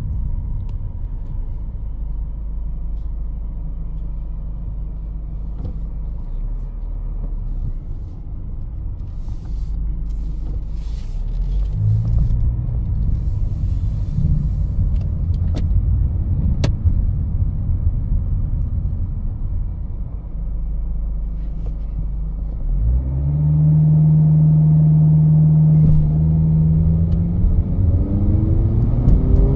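A 2021 Honda HR-V's 1.8-litre four-cylinder engine and road noise while driving, a steady low rumble. About 23 seconds in, the engine note steps up and louder, then climbs in pitch near the end as the car accelerates.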